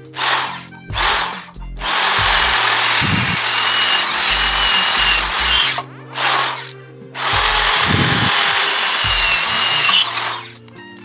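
Cordless drill with a twist bit drilling through steel sheet: two short trigger bursts, then two long runs of several seconds each with a short burst between them, the motor giving a steady high whine.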